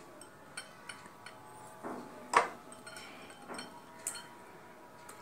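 Light clinks and knocks from a glass bowl and a steel mixer-grinder jar as boiled spiny gourd pieces are lifted out and dropped in by hand. About seven scattered taps, the loudest about two and a half seconds in.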